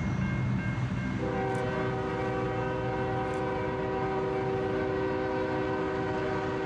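Norfolk Southern freight locomotive's air horn sounding one long steady chord, starting about a second in and held on, over the low rumble of the approaching train.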